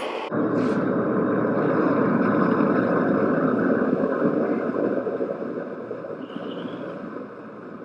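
Propane forge burner running with a steady roar that starts suddenly and eases down after about five seconds.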